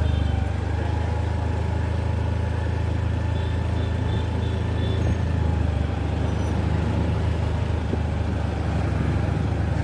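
Engine and road noise of a slowly moving car, heard from inside it as a steady low rumble. Faint short high beeps, like a distant horn, come a few seconds in.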